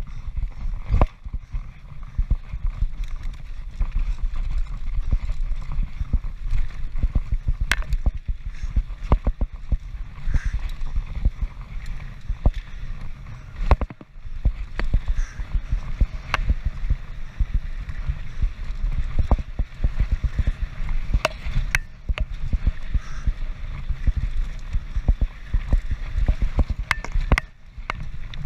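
Transition Patrol mountain bike descending a rough trail at speed: a steady rumble of wind on the action camera's microphone under a constant rattle and clatter of the bike over rough ground, with sharper knocks now and then.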